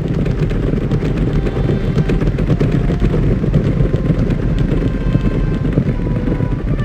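A herd of horses galloping: a loud, dense rumble of many overlapping hoofbeats.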